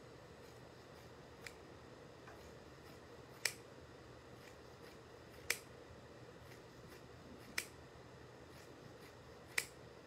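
Scissors snipping through wool cloth as a strip is hand-cut: one faint snip, then four sharp snips about two seconds apart, over quiet room tone.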